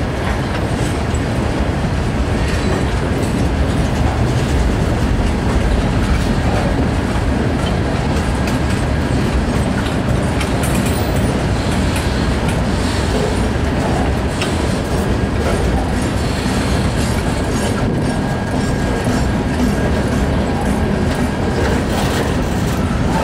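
Freight train boxcars rolling past at close range: a steady, loud rumble of steel wheels on rail, with repeated clicking as the wheels pass over rail joints.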